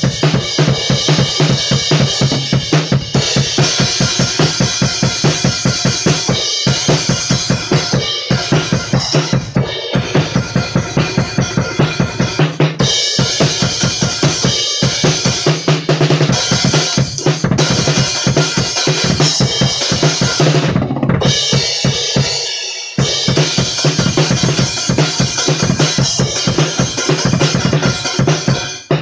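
Acoustic drum kit played hard in a fast heavy-metal beat: pounding bass drum, snare and crash cymbals, picked up only by a phone's microphone with no drum mics. There is a brief break about three quarters through.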